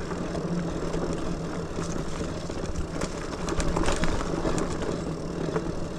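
Lectric XPeak 2.0 electric bike ridden over a dirt trail: a steady noise of tyres on dirt and a constant low hum, with scattered clicks and rattles from the bike over bumps.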